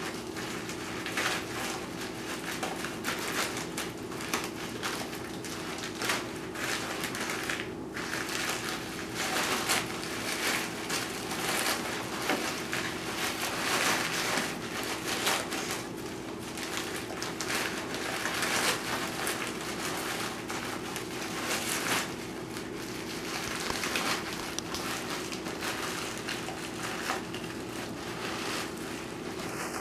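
Plastic zip-top bag being squeezed and crumpled by hand, crushing Ritz crackers inside into crumbs: a dense, irregular crinkling and crackling. A faint steady hum runs underneath.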